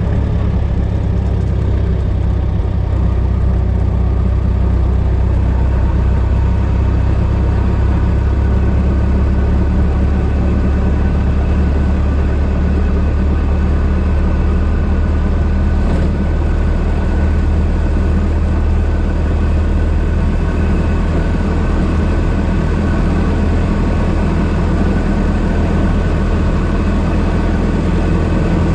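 1926 Ford Model T's four-cylinder engine running steadily while the car is driven, a low, even engine note.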